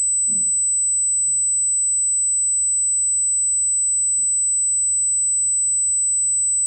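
A steady, high-pitched electronic tone holds unchanged throughout, over a faint low hum, with one faint soft knock about a third of a second in.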